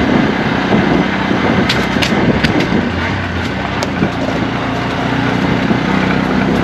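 Auto-rickshaw's small engine running at road speed, heard from inside the open cab with road and wind noise. A few sharp clicks come about two to four seconds in.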